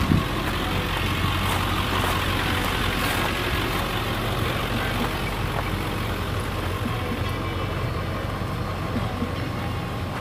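Motorcycle engines running with a steady low hum.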